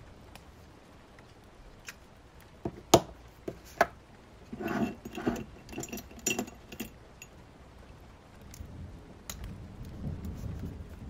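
Small handling sounds at a desk: a few sharp clicks and taps, the loudest about three seconds in, then a couple of seconds of rustling. Near the end a low rain-and-thunder rumble rises.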